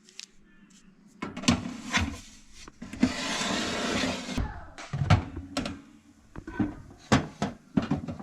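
Kitchen handling sounds: a series of knocks and clatter, with a short stretch of steady noise about three seconds in.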